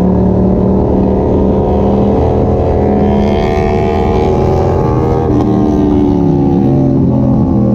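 Yamaha MT-07's 689 cc parallel-twin engine running loud and steady through an Arrow exhaust with the dB killer removed, its pitch dipping briefly and coming back about six seconds in.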